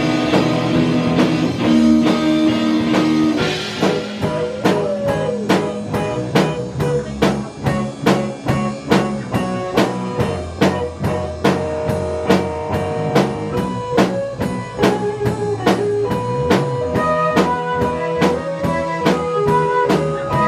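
Band playing a blues-rock song: guitar and other instruments holding notes, with a drum kit keeping a steady beat that comes in strongly about four seconds in.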